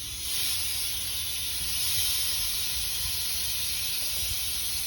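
Refrigerant (Freon) venting under pressure from a 2008 Nissan Frontier's air-conditioning system as it is drained: a steady hiss, emptying the system of pressure before the hoses are opened.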